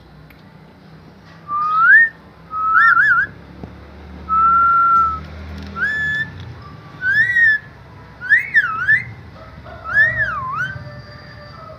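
A parrot whistling a series of seven short clear whistles. Some slide upward, one is held steady, and the last few swoop up and down in pitch.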